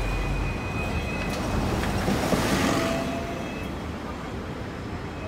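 Hong Kong street tram passing on its rails, a rumble with a faint high steady whine that fades away after about three seconds, over street traffic noise.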